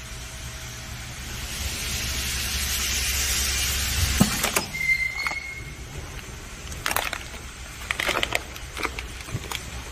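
Pneumatic nozzle vacuum packer (VS-450ES-D) drawing air out of a nylon vacuum bag: a hiss that grows louder over a steady low hum, cut off about four seconds in by a thump as the cycle ends. A brief high-pitched tone follows, then clicks and crinkling of the plastic bag being handled.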